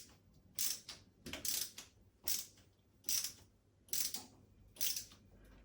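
A screw being turned by hand into a wall plug, with a short scraping sound on each turn, repeating about once every 0.8 seconds.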